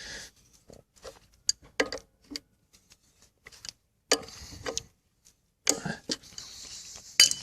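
Scattered metallic clicks and taps of hand tools and installer hardware being handled on a diesel engine's crankshaft seal installer, with short scraping stretches and a louder metal clink near the end.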